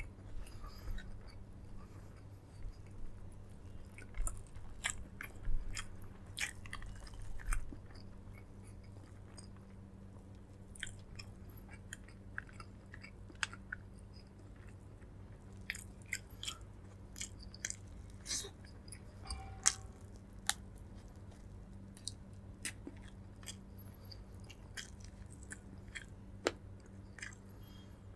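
A person eating close to the microphone: chewing with irregular wet mouth clicks and smacks, busiest in the first several seconds and sparser afterwards, over a steady low hum.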